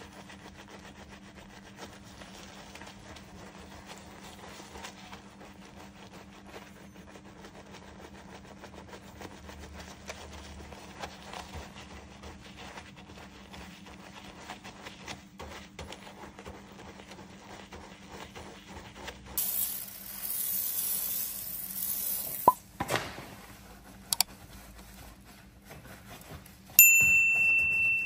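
Soft, steady scrubbing of a detailing brush's bristles over soapy, foam-covered car paint, over a faint steady hum. About 19 seconds in comes a louder hissing rush lasting about three seconds, then a sharp click, and near the end a loud electronic beep.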